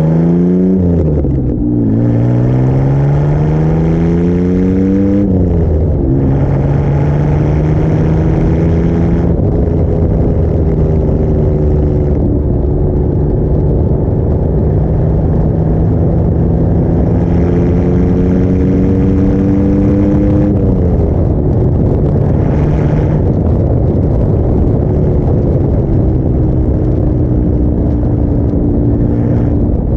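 Car engine and exhaust running through a compact homemade muffler on a former straight-pipe system while driving, still pretty loud. The note climbs and drops twice in the first five seconds as the car shifts up, then settles to a steady cruise. It climbs and drops again about twenty seconds in, and rises near the end.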